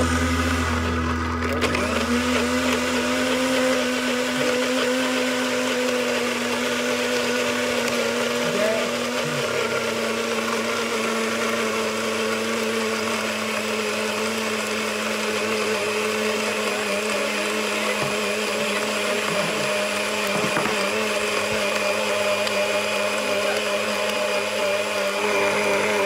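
Countertop blender running steadily at an even pitch, blending a thick smoothie in its tall jug.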